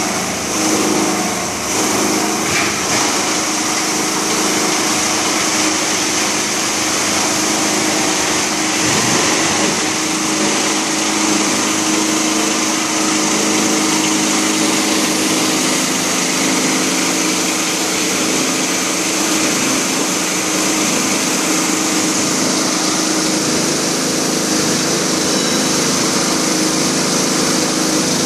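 Plastic crusher (granulator) driven by a 37 kW electric motor, running and cutting up a roll of plastic sheet fed into its hopper. There is uneven crunching over roughly the first ten seconds, then a steady mechanical run with a constant hum and a high whine.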